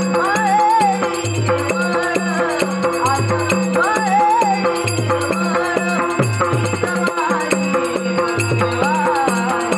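Indian devotional song: a male voice singing a wavering melody over a pakhawaj drum playing a steady rhythmic pattern of deep bass and higher-pitched strokes, with a steady drone and light jingling percussion beneath.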